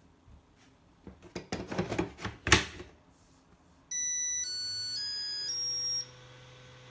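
Makita DC18RF battery charger being handled, with a cluster of plastic clicks and knocks, the loudest about two and a half seconds in. Then the charger plays a short electronic melody of about five beeping notes, and a low hum comes in under it and continues.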